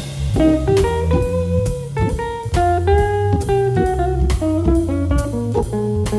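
Background music: plucked guitar melody over a drum kit beat, in a jazzy, bluesy style.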